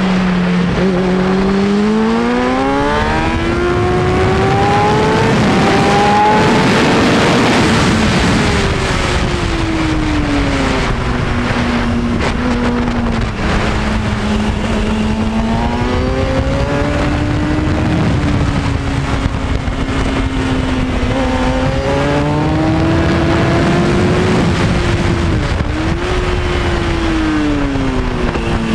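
Onboard sound of a 2003 Kawasaki Ninja ZX-6R 636's inline-four engine at track speed, with steady wind rush. The revs climb for the first several seconds, drop away, then rise and fall again through the corners, with a quick dip and recovery near the end.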